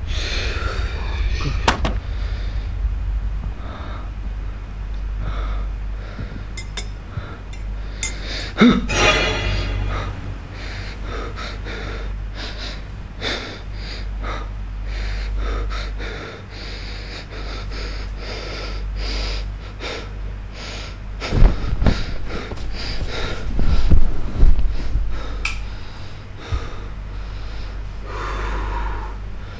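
A man gasping and breathing hard over a low, steady rumbling drone, with a few sudden loud hits past the middle.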